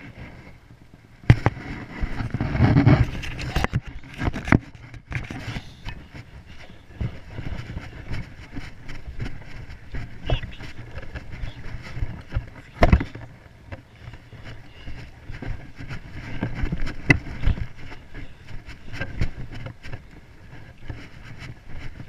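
Handling noise of a small action camera being picked up and moved on the grass: rumbling scrapes and sharp knocks against its housing. The knocks are densest and loudest from about one to five seconds in, with a single sharp knock again around the middle.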